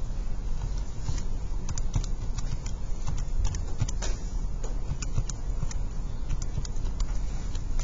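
Keys of a TI-84 Plus C Silver Edition graphing calculator being pressed as a function is typed in: quick, irregular clicks, several a second, over a steady low hum.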